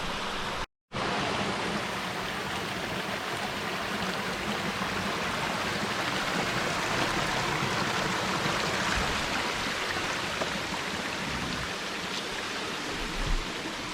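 Steady rushing of a jungle stream of running water. The sound drops out briefly just under a second in, then resumes.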